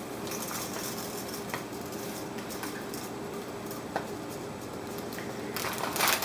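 Pot of hot water hissing steadily as dry whole wheat spaghetti is lowered in and fans out against the stainless steel pot, with a few light ticks and a louder burst of noise near the end.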